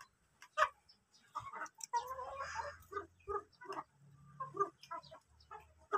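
Free-range village chickens (ayam kampung) making short, scattered clucks while feeding, with light taps of beaks pecking at food on a plate.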